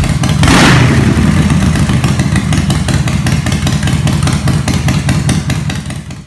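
Motorcycle engine running with a fast, even beat, fading out near the end, with a whoosh about half a second in.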